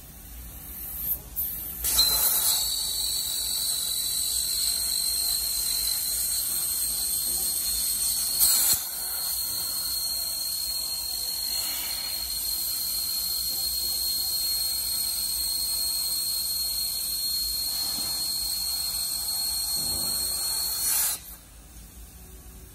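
CNC gantry plasma cutter's torch cutting steel plate: a loud, steady hiss of the plasma arc with a high-pitched whine in it. It starts about two seconds in after a couple of short puffs of gas and cuts off suddenly near the end as the arc shuts off.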